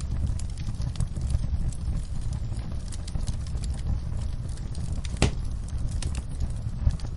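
Wood logs burning in a fireplace: a steady low rumble of flame with scattered crackles, and one louder pop about five seconds in.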